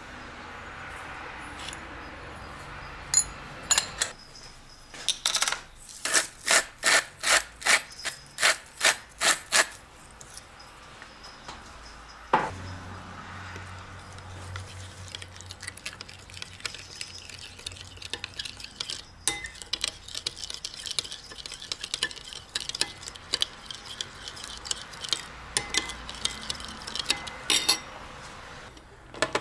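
A metal spoon stirring a soy-sauce marinade in a ceramic bowl, scraping and rubbing against the bowl. A few seconds in comes a run of about a dozen sharp clinks, roughly two a second, of metal on ceramic, and midway a low hum sounds for a few seconds.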